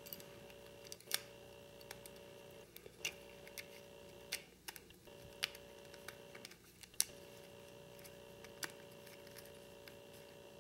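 Scattered small plastic clicks and taps from a BlackBerry Pearl's housing being handled and snapped back together, the loudest about seven seconds in, over a faint steady hum.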